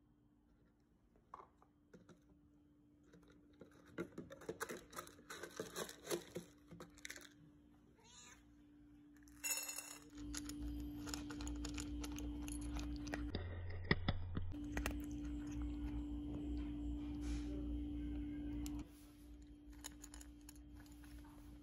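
Dry cat kibble rattling and clicking as it is scooped from a plastic jar and poured into a steel bowl, with a cat meowing once about halfway through. A steady low hum runs through most of the second half.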